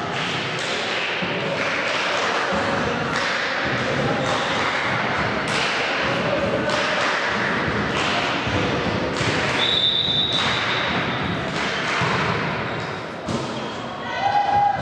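Thuds about once a second echoing through a large sports hall over a background of voices, with a short steady high-pitched tone about two thirds of the way in.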